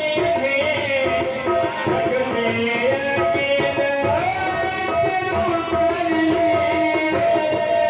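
Instrumental kirtan music: a held, gliding melody line over a steady jingling percussion beat of about three strokes a second. The percussion drops out briefly past the middle.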